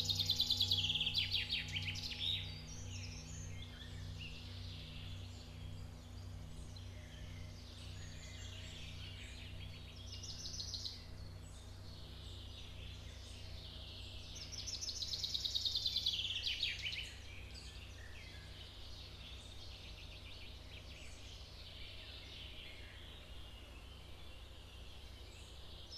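Ambient soundscape: a low drone pulsing about one and a half times a second, with birdsong trills over it near the start and again about two-thirds of the way through.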